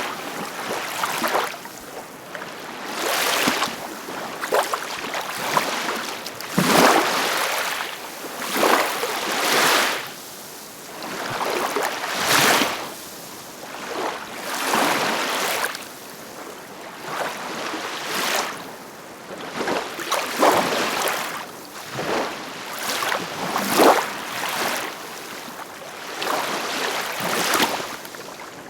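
Ocean waves breaking and washing in, swelling and falling back every two to three seconds.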